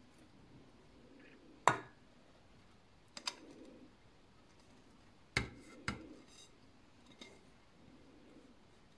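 A white plate clinking against a steel saucepan as grated cheese is pushed off it into the pot: a few sharp, light knocks, the strongest about two seconds in and a close pair past halfway, with faint soft handling between.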